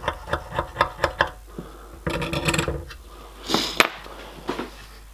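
Scalpel blade scraping in short, quick strokes, about four a second, along the edge of a steel bar as excess hot-melt glue film is trimmed off. The strokes stop after about a second. A longer rubbing scrape follows, and near the end a scrape and a sharp click, fitting the scalpel being put down on the bench.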